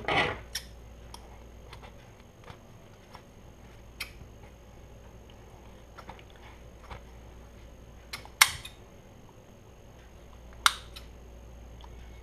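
Scissors snipping through a foam squishy toy: sharp, separate snips a few seconds apart, the loudest two coming after about eight seconds.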